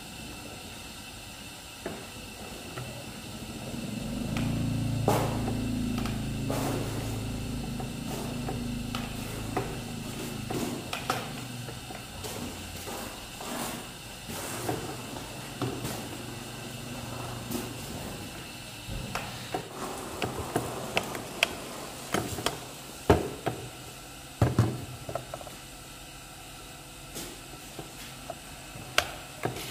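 Ironing handling sounds: a spray bottle misting cloth and a clothes iron set down and moved on a padded pressing block, giving scattered sharp knocks and taps, more of them in the second half. A few seconds in, a low engine-like hum rises and fades out after about six seconds.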